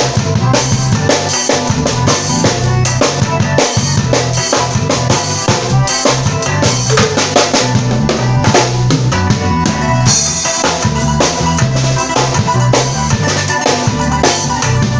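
Drum kit played in a steady groove, with bass drum, snare and rimshot hits, over a worship song's backing music with a steady bass line.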